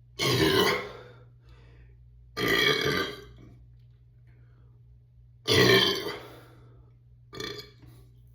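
A person burping after chugging beer: three loud, long burps about two and a half seconds apart, then a short, weaker one near the end.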